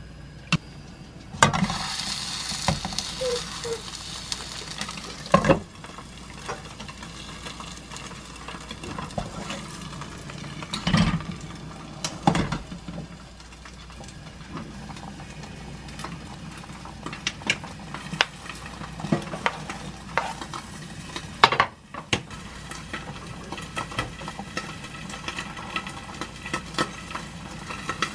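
A silicone spatula stirring soybean paste into simmering water in a pot on a gas stove, with the water bubbling and hissing at the boil. Several sharp knocks of the metal pot and lid against the stove grate as the cookware is moved around.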